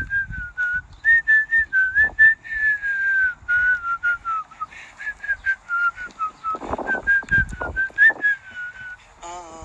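A man whistling a tune, a run of short notes that rise and fall with now and then a slow downward glide; the whistling stops near the end.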